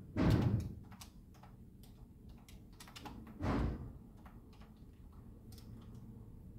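Typing on a computer keyboard: a loose patter of keystroke clicks. Two louder, half-second rushes of low noise stand out, one just after the start and one about three and a half seconds in.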